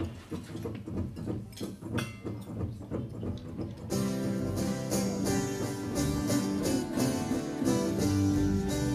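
Acoustic string band playing an instrumental intro on acoustic guitars, banjo and double bass. It starts with sparse, quieter guitar notes, then about four seconds in the full group comes in with steady strumming and a walking bass.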